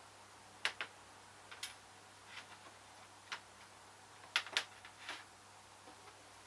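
A scattering of short, sharp, light clicks and taps, two near the start and a quick cluster a little past the middle, from handling a key blank and files while a key is hand-cut.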